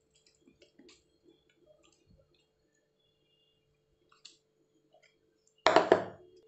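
Mashed cooked rice and dal sliding out of a vessel into a pot of sambar, with faint soft wet clicks over a faint steady hum. Near the end comes a loud, brief clatter of a few quick knocks, such as the vessel or spoon striking the pot.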